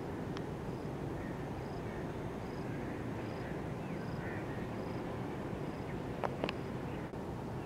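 Outdoor ambience: a steady low background rumble, with a faint high chirp repeating a little more than once a second and a few faint calls around the middle. A sharp click comes shortly after the start and two more near the end.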